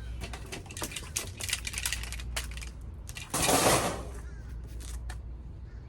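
Household items being handled and shifted: a run of light clicks and knocks, then a louder scrape or rustle lasting about half a second just past the middle, and a few more knocks near the end.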